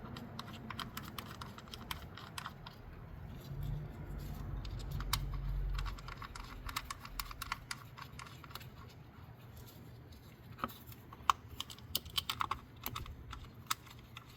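Small irregular clicks and taps of ignition-coil hold-down bolts and coils being handled and threaded in by hand, with a low rumble for about two seconds near the middle.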